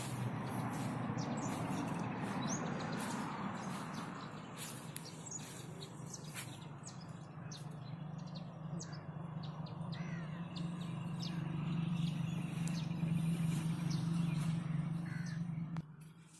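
Birds calling and chirping, over a steady low hum that grows louder in the second half and fades out near the end.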